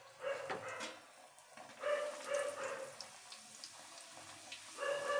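Hot oil sizzling steadily as a bhatura of rolled dough fries and is pressed down with a wire skimmer. Several short, steady-pitched whines sound over it, about half a second, two seconds and five seconds in.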